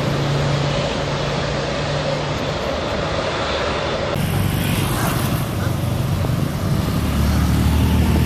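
Steady road traffic with vehicle engines running. The sound changes abruptly a little past halfway, and near the end a louder engine passes close: a motor scooter going by.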